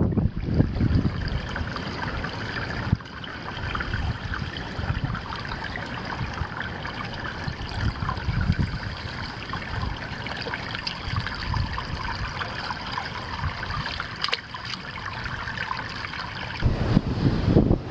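Water trickling in a small creek pool, with wind gusting on the microphone and growing stronger near the end.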